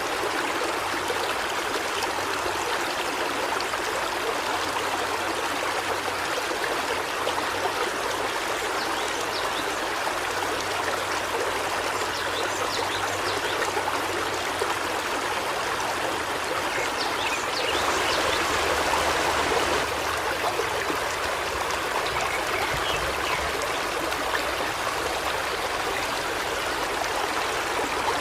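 River water flowing over rocks, a steady babbling rush that swells slightly about two-thirds of the way through.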